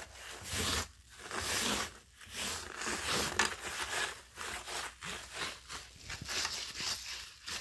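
Hands sweeping scattered fish-food pellets across a woven tatami mat: repeated short scraping, rustling strokes.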